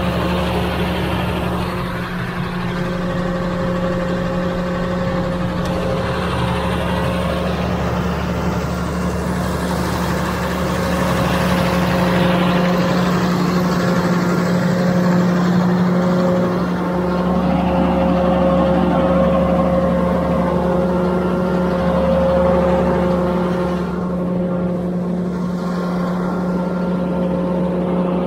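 A motor vehicle's engine running steadily under way, a continuous drone with a strong low hum.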